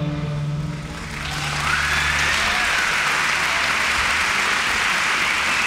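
The cellos and basses of a student string orchestra hold a final low chord that fades out. About a second in, audience applause breaks out and continues as steady clapping.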